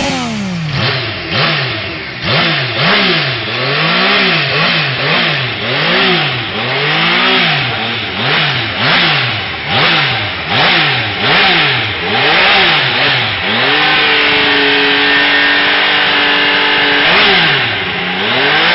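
A Yamaha MT-09's three-cylinder engine being revved in quick throttle blips, rising and falling about once every second. After about 14 seconds it is held at a steady higher rev for around three seconds, drops back, and is blipped once more near the end.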